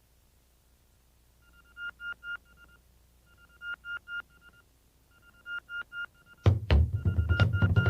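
Electronic beeping like a phone tone, steady high beeps broken up by sharp clicks, repeated in three similar groups under two seconds apart after a moment of near silence. About six and a half seconds in, a band's bass and drums come in loudly and the beeping pattern carries on over them.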